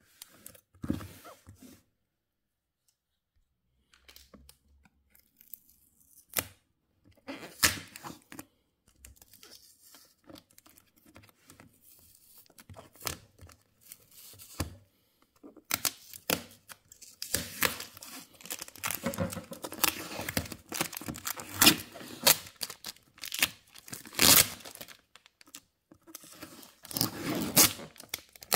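Yellow packing tape being torn and peeled off a cardboard box by hand, with crinkling and rustling. After a brief pause near the start, the rips come in irregular bursts that grow busier and louder through the second half.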